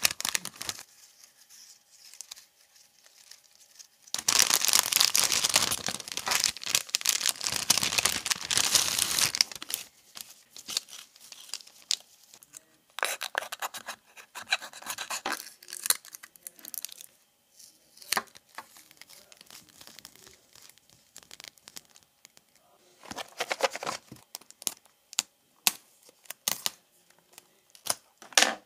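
Plastic packaging and paper crinkling, rubbing and tearing as craft supplies are unwrapped close to the microphone. The loudest part is a long crinkling stretch from about four to nine seconds in, followed by shorter crackles and small taps.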